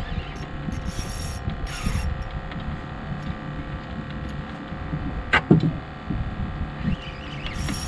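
Fishing reel clicking and whirring as a hooked fish is played on a bent rod, with short high-pitched buzzes near the start. A brief rising squeak about five seconds in is the loudest sound. Wind rumbles on the microphone throughout.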